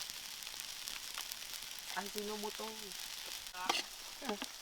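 Garlic and onion frying in hot oil in a pan, with a steady sizzle and a few light clicks from stirring.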